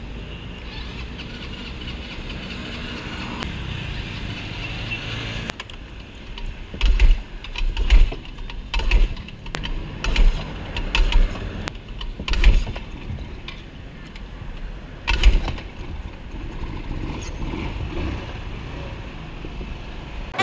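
Rusi Gala SC125 scooter engine being started with difficulty: it runs unevenly for a few seconds, then comes a string of irregular heavy bursts as it is tried again. This is the hard-starting fault, where the first start dies out and the engine will not keep running.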